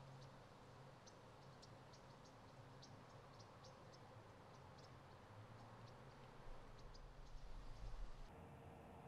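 Near silence: quiet outdoor ambience with faint, scattered high-pitched ticks, a few a second, and a soft low rumble shortly before the end.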